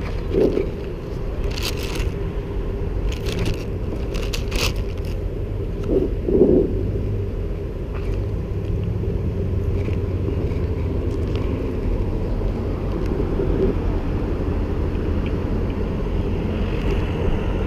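Steady low rumble of traffic and engines around the gas station. Crackling paper rustle sounds in the first few seconds as the thin pages of a Bible are handled and turned.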